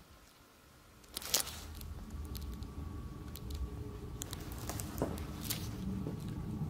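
Near-silent room tone, then a sharp click about a second in, followed by a low steady hum with a few faint scattered clicks and creaks from someone moving about.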